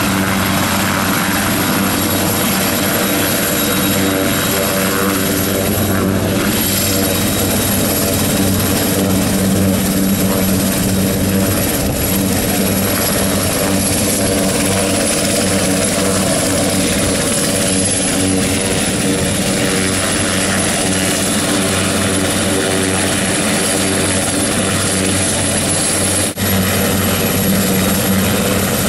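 HAL Cheetah (SA 315B Lama) light turboshaft helicopter running on the ground with its rotor turning. Steady, loud rotor and engine noise with a thin high turbine whine over it.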